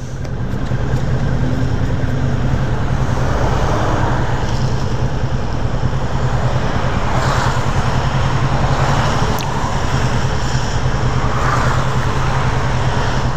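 Motorcycle engine running steadily under way, with wind and road noise. The sound swells over the first second and then holds steady.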